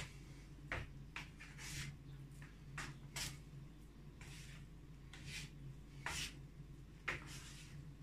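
Hands working soft sourdough on a wooden worktop: a run of short sticky slaps and scrapes, roughly one every half second to a second, over a steady low hum.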